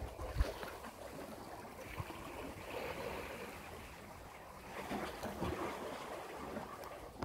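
Small sea waves washing in at the shore, swelling twice, with a few short low knocks from handling the phone.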